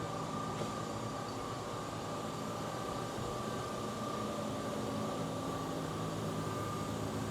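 Steady hum from the hydraulic power unit of an Amada Promecam HFB 8025 CNC hydraulic press brake idling while powered up, with a constant high whine over a low drone.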